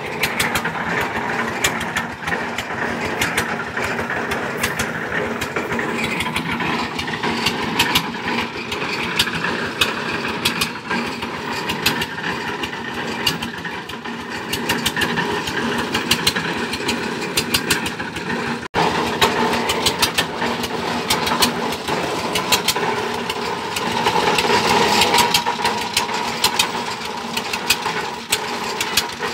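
Engine of a tube-well boring rig running steadily, with a fast, dense clatter over its hum. The sound breaks off for an instant about two-thirds through, then carries on much the same.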